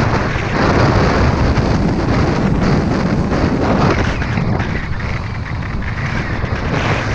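Wind rushing and buffeting a skier's head-mounted camera microphone at speed, mixed with the hiss of skis cutting through deep powder.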